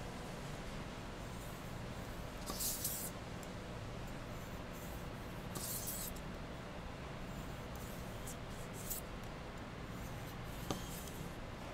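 A freshly whetstone-sharpened chef's knife slicing through paper and then through small tomatoes resting on the paper: two short hissing swishes, then softer cuts with light clicks of the blade, the sharpest click near the end.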